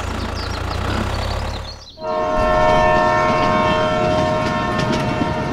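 Battery-powered toy steam locomotive's electronic whistle sounding one long steady chord of several notes, starting about two seconds in. Before it, a small motor's low hum stops abruptly.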